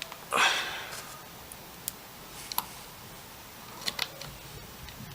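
Light clicks and taps of small screws and a hand driver being handled while fastening a quadcopter motor to its frame, with a short scraping rustle about half a second in.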